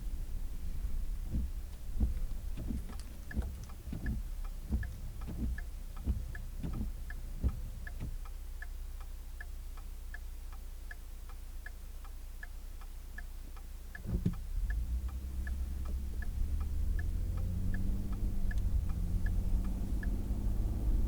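Turn-signal flasher ticking steadily inside a car's cabin, a few ticks a second, over low road rumble with scattered thumps. A knock comes about two-thirds through, after which the engine and road noise grow louder as the car speeds up.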